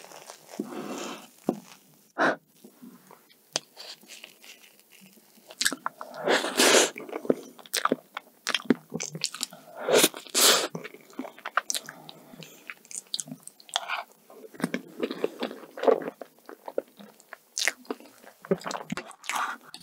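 Close-miked eating sounds: chewing and wet mouth clicks from a spoonful of soft kiwi fresh-cream cake, coming in irregular bursts. The loudest bursts are about six and ten seconds in.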